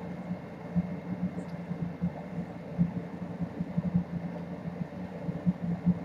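Kittens playing with a feather wand toy on a hardwood floor: irregular soft thumps and taps from paws and toy, over a steady low hum.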